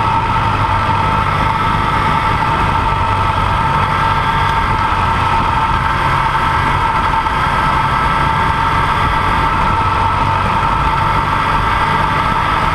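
Dual-sport motorcycle engine running at a steady, unchanging pitch while the bike rides along a gravel road.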